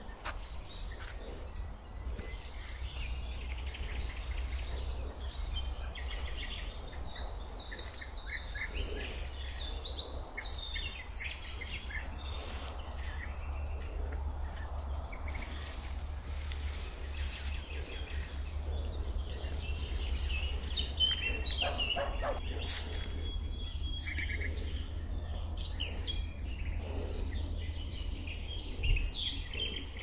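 Several forest songbirds singing, with a long run of fast, high trilled notes about a quarter of the way in and scattered calls again in the second half, over a steady low rumble.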